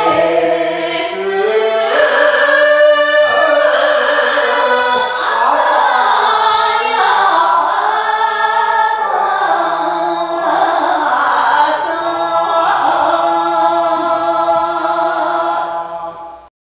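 Live Tsugaru minyo folk singing, with long held notes that bend and waver in pitch. It stops suddenly near the end.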